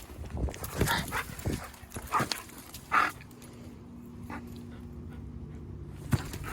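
Wolfdog making a few short yips or whimpers among knocking and scuffling sounds, with a low steady hum from about three seconds in.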